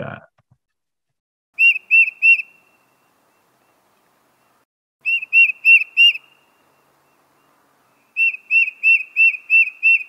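Tufted titmouse singing its whistled 'peter-peter-peter' song: three phrases of quickly repeated clear notes, three notes, then four, then about six.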